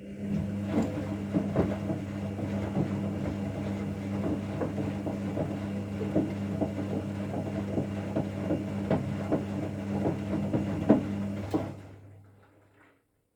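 Candy washing machine running: a steady motor hum with irregular knocks and clacks throughout, which cuts off about twelve seconds in.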